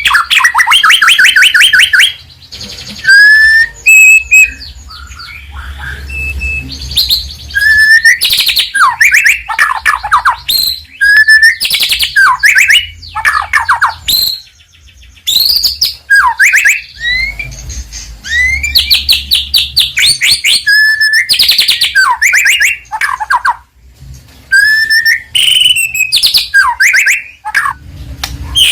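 White-rumped shama singing loudly in a long, varied run: fast rattling trills, slurred whistles and sharp chirps, with brief pauses between phrases.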